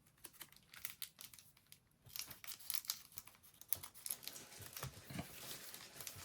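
Crinkly plastic trading-card packaging being handled and torn open, a dense run of small crackles that grows busier about two seconds in.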